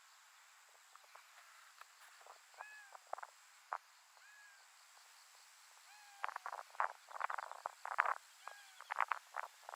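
Short chirping animal calls that rise and fall in pitch, scattered throughout, with a dense run of sharp crackles and clicks in the second half.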